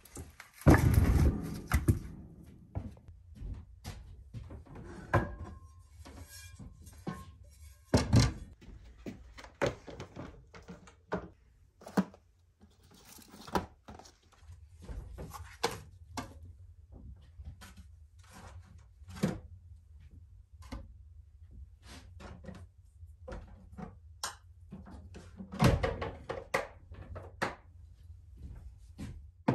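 Dull thunks and knocks of split firewood being set down on the floor beside a wood stove, the loudest cluster about a second in. Scattered clunks follow as food containers are handled in a hard plastic cooler, with a heavier thud near the end as the lid is shut.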